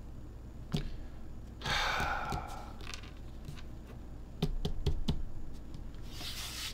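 Light fingertip taps and knocks on a cutting mat, a handful of separate clicks including a quick cluster about four and a half to five seconds in, with two short rustling bursts, one about two seconds in and one near the end.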